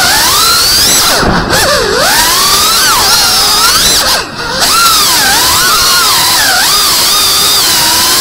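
FPV drone's brushless motors whining, the pitch rising and falling as the throttle changes, with a brief drop a little past four seconds in.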